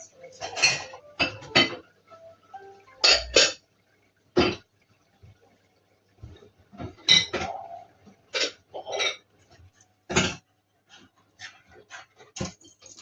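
A string of short, sharp clinks and clatters at irregular intervals, about a dozen in all, the loudest a double knock about three seconds in and another about ten seconds in.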